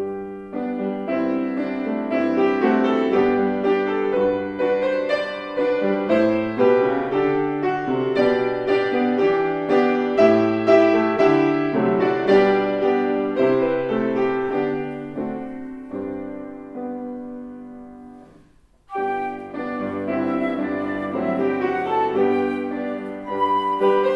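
Calm instrumental piano music. It fades out about three-quarters of the way through, and a new passage starts straight after.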